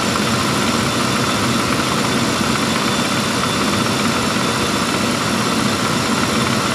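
Steady, even running noise from a 1995 Lincoln Town Car with its 4.6-litre V8 running, with no changes in pitch or level.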